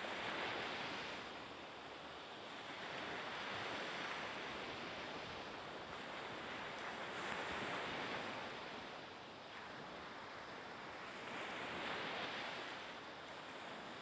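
Small waves washing on a harbour shore with some wind, a steady rushing that swells and fades about every four seconds.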